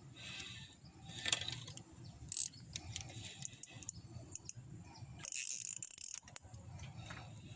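Fishing reel being worked, its gears and mechanism turning with scattered sharp clicks, as the line is tended after a bite.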